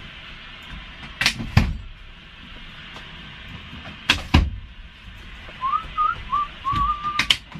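Someone whistles a short phrase of a few quick rising notes and then a held, wavering note, near the end. It sits over a steady hiss, with a few sharp clicks and knocks in pairs, the loudest of them just after the whistle.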